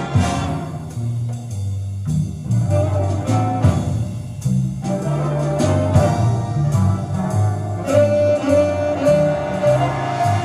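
Instrumental jazz-style music with a stepping bass line and sharp percussive hits, played back through a pair of Klipschorn horn loudspeakers in a room.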